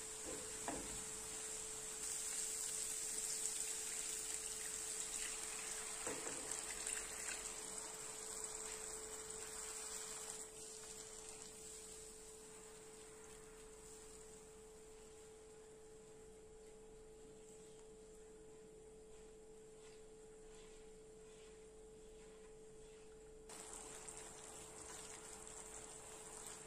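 Food sizzling in a pan as the masala cooks, louder for the first ten seconds or so and then quieter, over a steady humming tone.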